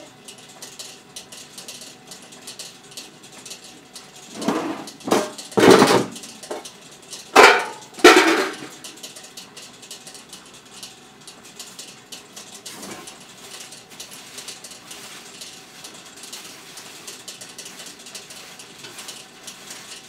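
Loud metal clanks and knocks: a cluster about four to six seconds in and two more near seven and a half and eight seconds, over a faint steady background with light ticking.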